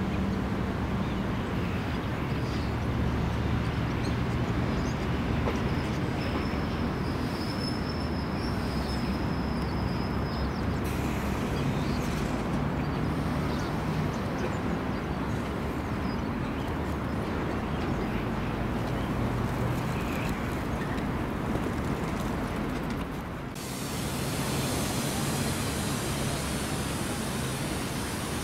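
Steady low rumble and hum of trains at a railway station. A thin high squeal sounds briefly about a third of the way in. About 23 seconds in, the sound changes abruptly to a brighter, hissier rumble.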